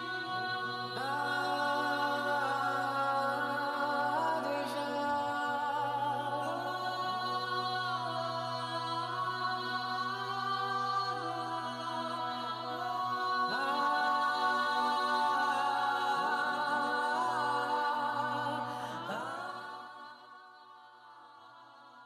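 Slow background music of sustained, choir-like vocal chords over a steady low drone, with the notes changing every few seconds; it fades out near the end.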